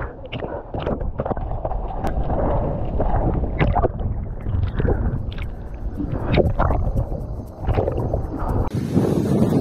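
Sea water sloshing and splashing around an action camera held at the surface by a swimmer, dull and muffled with many short splashes. Near the end it cuts off abruptly and wind rumbles on the microphone.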